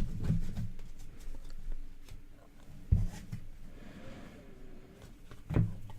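Trading cards being handled and sorted on a table: faint rustling and clicks, with a couple of soft low thumps, one about three seconds in and one near the end.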